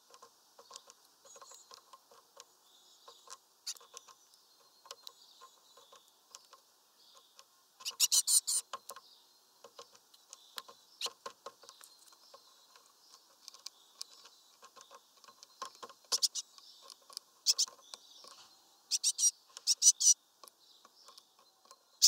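Great tits pecking among sunflower seeds on a feeder tray: sharp clicks and taps, coming in quick runs, the loudest about eight seconds in and again near the end.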